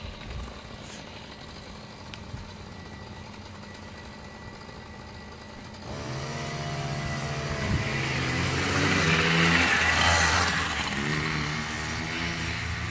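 A child's small dirt bike engine: quiet at first, then about halfway in the engine comes in close, revving up and down and growing louder, loudest near ten seconds, then running on a little quieter.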